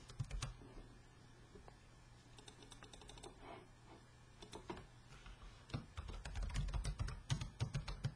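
Typing on a computer keyboard: scattered key clicks, then a quicker run of keystrokes in the last couple of seconds.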